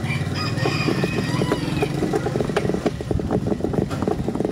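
Motorcycle engine running steadily, a close, even putter with no rise or fall in level.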